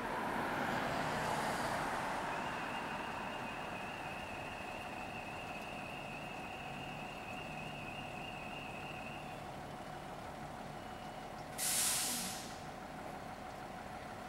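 Fire engine's diesel running steadily, with a steady high tone over it for several seconds. Near the end, a short loud hiss of the air brakes releasing.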